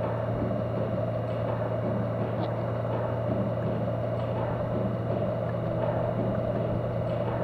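Motorcycle riding at a steady cruising speed: a constant low engine hum under a broad rush of wind and road noise, with no change in pitch or level.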